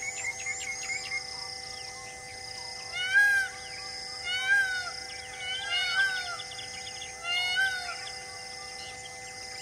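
Four loud, short arching calls from an animal, about a second and a half apart, over a steady background of high chirping and held tones.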